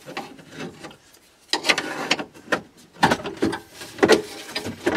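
The plastic instrument-cluster bezel of a 2005 Chevrolet Suburban dashboard is being pried loose by hand: a run of plastic clicks, creaks and scrapes as the trim clips are worked. A short quiet pause comes about a second in, then the clicking gets busier.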